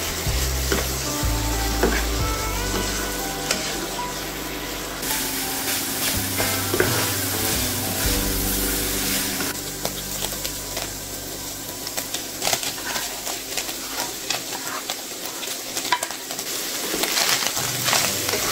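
Ground beef sizzling as it browns in a nonstick skillet, stirred with a wooden spatula that gives short scraping and tapping clicks against the pan. Background music plays under roughly the first half.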